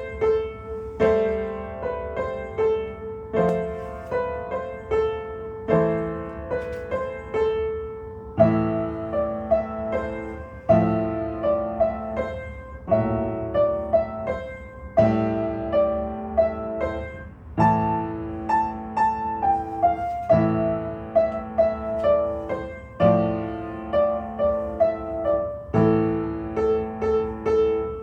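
Piano playing a bell-themed Christmas carol as an instrumental. A repeated melody note rings over bass notes that come in about eight seconds in and are struck about every two and a half seconds.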